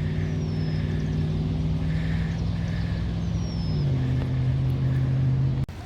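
A motor vehicle's engine running with a steady low hum, its pitch stepping down slightly about four seconds in, before the sound cuts off abruptly. Two faint, short, high falling chirps come from a small bird.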